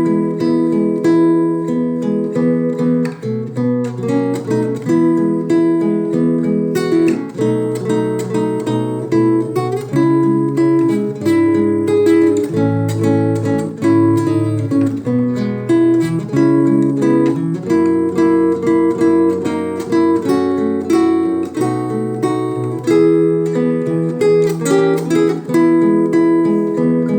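Acoustic guitar playing a hymn tune, strummed and plucked chords over a moving bass line, with no singing.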